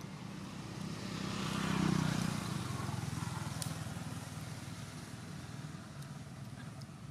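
A motor vehicle passing by: its engine hum and rushing noise swell to a peak about two seconds in, then fade away over the next few seconds.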